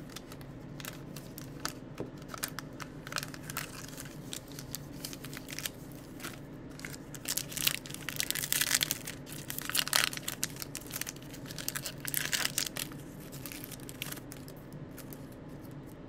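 Light clicks of trading cards being handled, then, from about seven seconds in, a foil baseball-card pack wrapper being torn open and crinkled by hand for several seconds, its loudest part in the middle.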